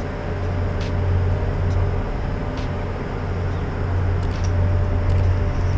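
Steady low engine drone with a fainter hum above it, and a few faint ticks.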